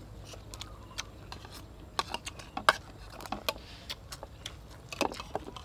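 Eating at the table: metal spoons clicking and scraping on china plates, with the smacks of chewing. The clicks come sharp and irregular, the loudest a little under three seconds in.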